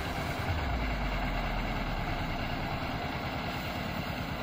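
Engine-driven drum paddy thresher running steadily as rice stalks are fed into it: a small stationary engine with a fast, even pulse and the whirring threshing drum it drives.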